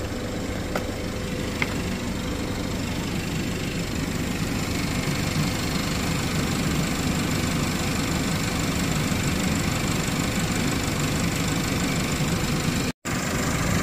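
Ford Fusion's 2.0 EcoBoost turbocharged four-cylinder engine idling steadily. There are two light clicks in the first two seconds, and the sound drops out briefly near the end.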